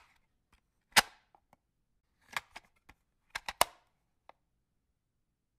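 A series of sharp cracks like cap-gun shots: one loud crack about a second in, then two quick clusters of quieter cracks, the last one faint.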